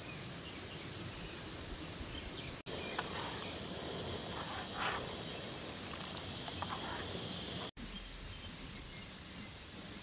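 Steady outdoor ambience of a rocky mountain river and insects. In the middle comes a closer, louder stretch with a hiss and a few light clinks of a ladle stirring milk tea in a metal pot on a camping gas stove.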